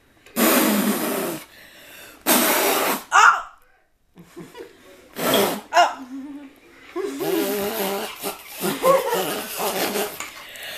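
A person laughing in short, breathy, cough-like bursts; about seven seconds in it turns into voiced giggling.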